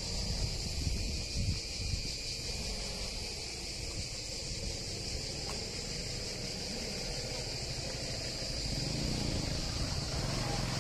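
Steady, unbroken chorus of insects, a high even drone, over a low outdoor rumble.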